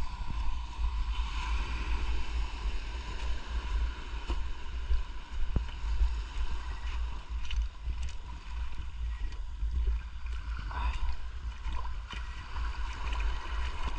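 Water moving around a diver's camera during a night dive: a continuous low rumble with muffled sloshing, scattered small clicks and a faint steady hum.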